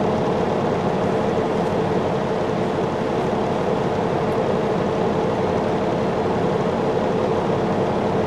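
Steady drone of a Peterbilt semi-truck's diesel engine running, heard inside the cab, with a constant hum underneath.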